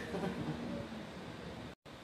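Steady room noise, a faint hiss, with a trace of a woman's voice in the first half second. The sound cuts out completely for a split second near the end.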